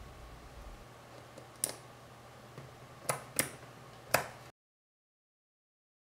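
A few light plastic clicks, four in all, over a faint hiss as resin keycaps and the 3D-printed macropad are handled. The sound cuts off into dead silence about four and a half seconds in.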